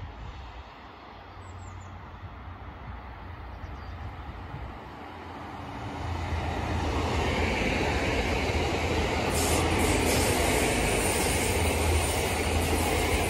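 Two coupled DB class 633 PESA Link diesel multiple units approaching and passing close by: faint at first, the rumble of engines and wheels on rail grows louder about six seconds in and holds steady and loud as the train runs past.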